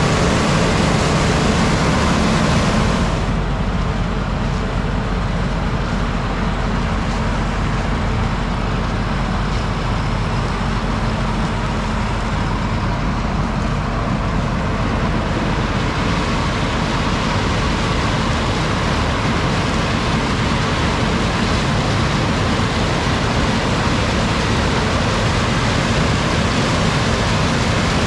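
Harvest machinery running steadily under load, a loud even engine and mechanical noise. About three seconds in the high hiss drops away, then builds back gradually over the next dozen seconds.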